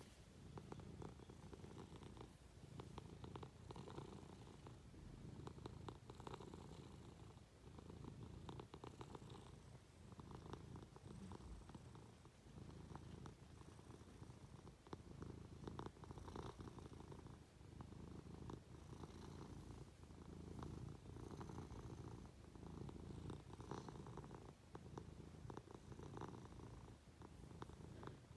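Munchkin cat purring faintly and steadily, the low rumble swelling and easing with each breath about every two seconds.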